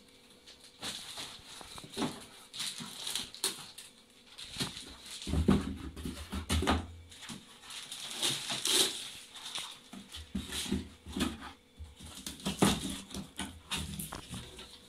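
Crinkling plastic bag and scraping moulded pulp packing pieces as a water purifier is unpacked: irregular rustles and crackles, with a few dull knocks about halfway through.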